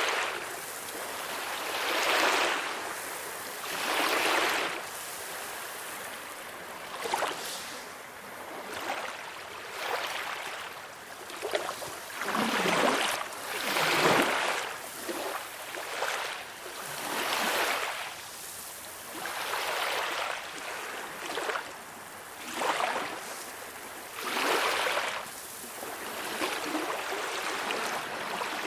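Calm sea waves washing in and drawing back, a hissing surge that swells and fades every two to three seconds.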